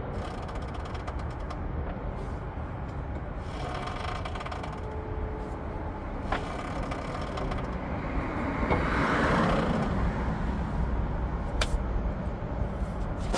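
Upper strut bearing of a 2012 Honda Odyssey's shock absorber making its noise as the strut is turned: a few sharp clicks and a louder stretch of noise about nine seconds in, over a steady low rumble. The bearing is worn and is being replaced for this noise.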